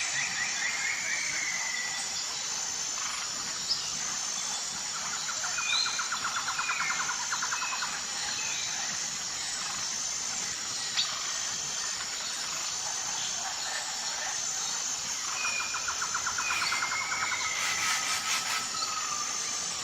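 Wild birds calling: short whistled notes, and two fast trills about a third of the way in and again near the end. Underneath runs a steady, evenly pulsing high-pitched chirring of insects.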